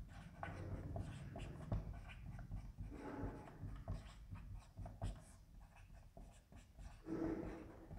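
Marker pen writing on a whiteboard: faint, irregular scratching strokes with a few light taps.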